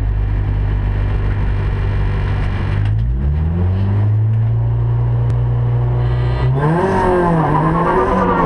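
Rally car engine heard from inside the cabin, running steadily while stationary at the start. Its revs step up about three seconds in, then rise and fall more loudly near the end, with a hiss over the engine.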